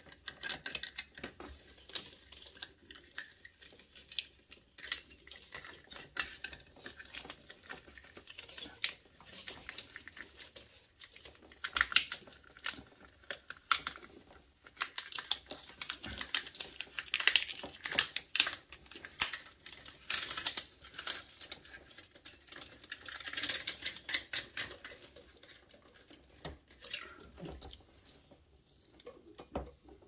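Plastic cord zipper being zipped closed around a bundle of cables: the slider clicks and rattles over the sleeve's plastic teeth in uneven runs of quick ticks, busiest through the middle of the stretch.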